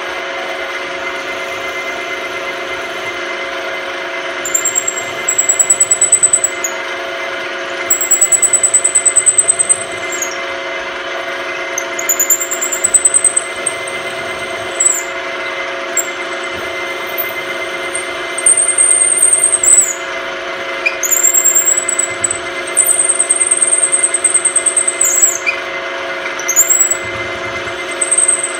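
Milling machine spindle running steadily while a drill bit cuts into a phenolic handle. The bit squeals at a high pitch in about half a dozen spells of one to three seconds as it is fed into the hole.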